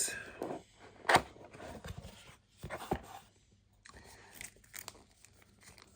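A cardboard product box being opened and its packaging handled: a sharp knock about a second in and another near three seconds, with scraping and rustling between.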